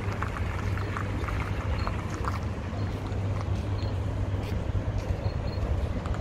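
Steady low rumble with wind noise on the microphone, a few faint clicks and short high chirps over it.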